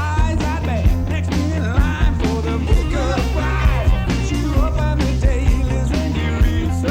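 Rock band playing a song from a cassette recording: a steady drum beat over a strong bass line, with a wavering melodic line above.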